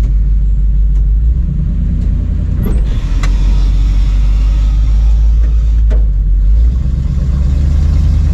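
Engine of a 4x4 off-road tow truck running steadily at low speed, its low drone stepping in pitch about a second in and again near the end. A few short knocks sound in the middle.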